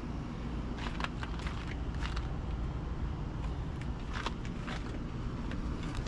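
Steady low drone of running outdoor air-conditioning condensing units, with several footsteps crunching on gravel and concrete, clustered early on and again past the middle.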